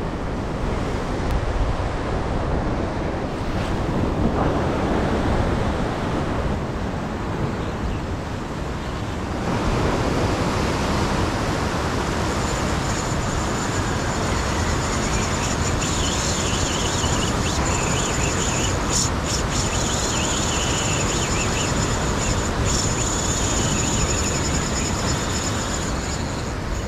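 Ocean surf washing and breaking against a rock ledge, with wind buffeting the microphone; it gets a little louder about a third of the way in. A thin, steady high whine runs through the second half.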